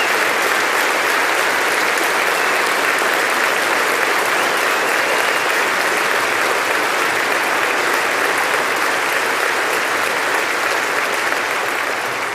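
Large audience applauding steadily, a dense continuous clapping that begins to die away at the very end.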